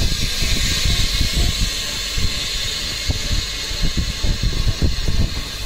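Compressed air hissing steadily in a phone-screen bubble remover (pressure chamber) during its cycle, which squeezes air bubbles out of the OCA adhesive layer. The hiss sets in just after a machine hum stops.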